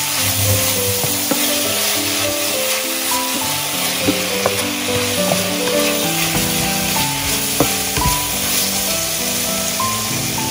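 Sliced pig heart sizzling as it is stir-fried in a nonstick pan, with a wooden spatula scraping and clicking against the pan now and then.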